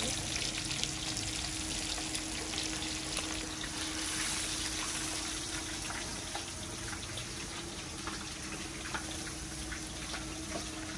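Fish frying in hot oil in a pan: a steady sizzle with scattered small crackles, over a faint low steady hum.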